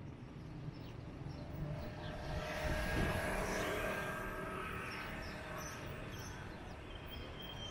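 A small motor scooter passing close by, its engine growing louder to a peak about three seconds in, then fading away.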